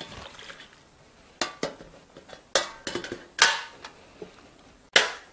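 Stainless steel tray clanking and scraping against a stainless steel container as it is fitted in and pressed down onto pickled peppers in brine. About seven separate metal knocks, the loudest about three and a half seconds in and near the end.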